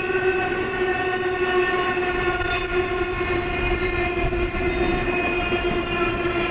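BNSF intermodal freight train's trailer-laden flatcars rolling past with a low rumble that builds a couple of seconds in, under a long steady droning tone that sinks slowly in pitch.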